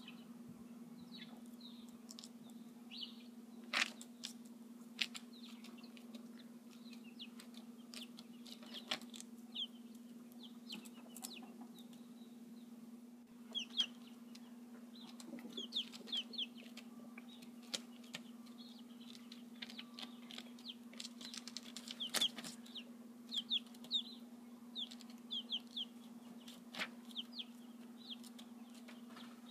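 Silkie chickens making short, high calls, often several in quick succession, over a steady low hum, with scattered sharp clicks.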